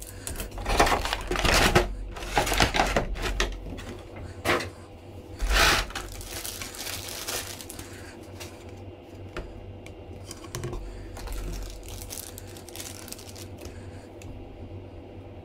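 Clear plastic blister packaging and plastic bags crinkling and clicking as they are handled during unpacking. Loud bursts of crinkling in the first six seconds, then softer rustles and light clicks.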